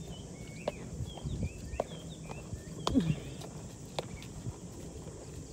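Footsteps on a stone-flagged path, landing irregularly about once or twice a second, with birds chirping in short rising and falling notes.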